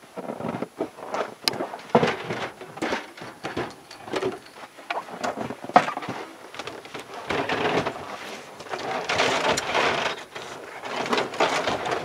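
Steel body-grip traps (160 size) and their boxes being handled and sorted: irregular metal clinks and knocks with rustling, a sharp knock about six seconds in, and denser clattering and rustling in the second half.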